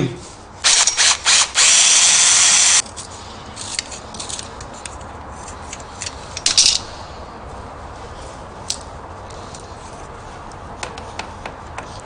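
Cordless drill with a twist bit boring a hole into a stick: a few short blips of the trigger, then a steady run that stops about three seconds in. After that, quieter scraping of a craft knife whittling the wood, with one short louder scrape about six and a half seconds in.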